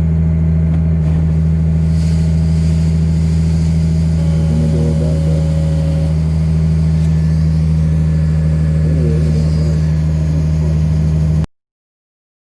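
An engine running steadily at constant speed with a deep, even hum, cut off abruptly near the end.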